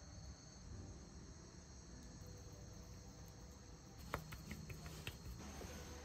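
Quiet room tone with a faint, steady high-pitched whine. About four seconds in come a handful of light clicks and taps as a plate and tableware are handled.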